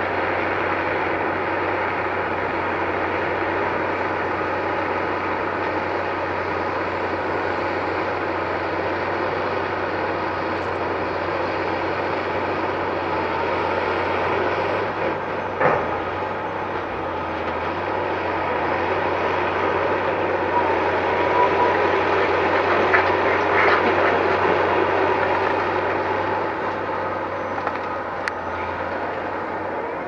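Bauer BG 36H rotary piling rig running steadily while drilling, its engine and hydraulics giving a constant mechanical noise with a low hum. A single sharp metallic knock comes about halfway through, and the running grows louder with some clatter for a few seconds after that.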